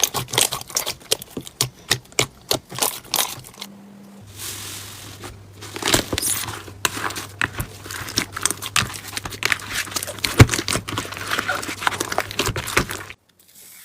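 Slime being squished and pressed by hand, giving a rapid, irregular stream of crackling clicks and pops, with a short lull about four seconds in.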